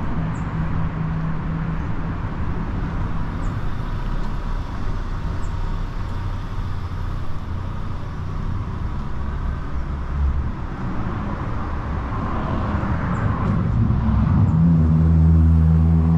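City street traffic: motor vehicles running past with an engine humming steadily close by. Near the end a heavier engine grows louder close at hand.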